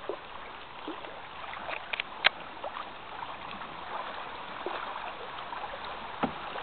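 Water lapping and trickling around a canoe, with a few sharp knocks against it: a pair about two seconds in and another near the end.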